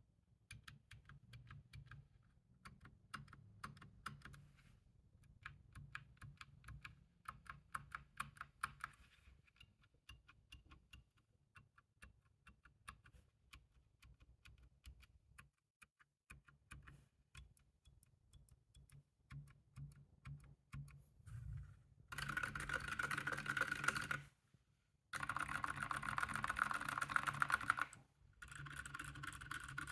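Typing on a Moonlander split mechanical keyboard fitted with unlubed silent tactile switches: separate, soft keystroke clicks at first. About two thirds of the way in the keystrokes become a much louder, dense, unbroken clatter in three long stretches with brief gaps.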